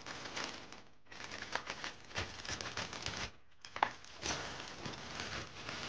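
Crinkling plastic bag and dry banana chips rustling as the bag of chips is handled, with many sharp crackles and clicks in uneven bursts and a brief pause about three and a half seconds in.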